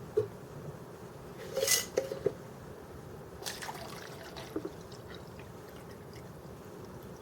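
Water poured from a mason jar into the reservoir of an ultrasonic aroma diffuser, in two short pours about two seconds apart, with a few light clicks and knocks.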